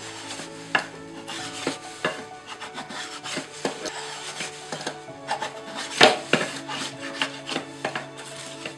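Hand spokeshave shaving a dry ash branch: a run of uneven short scraping strokes, each peeling off a curl of wood, the sharpest stroke about six seconds in.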